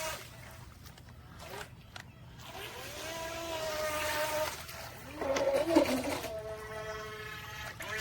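Small electric motor of an RC speedboat whining. It drops away, spins back up with a rising whine, and runs at changing speeds, with a rougher burst just past the middle.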